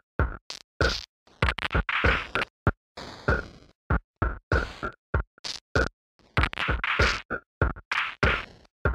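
Glitch-edited, chopped-up audio: short snippets of sound, a few a second, cut in and out abruptly with dead silence between them, in a stuttering scratch-like pattern.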